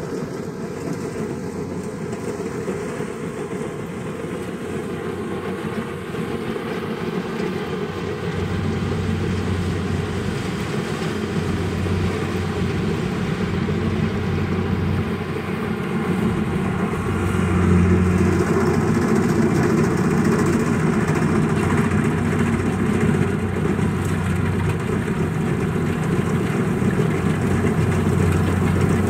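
Kubota rice combine harvester running while it cuts rice, a steady mechanical drone that grows gradually louder as the machine comes closer.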